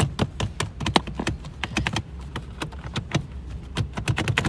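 A rapid, uneven series of sharp clicks and taps, several a second, over a low steady hum.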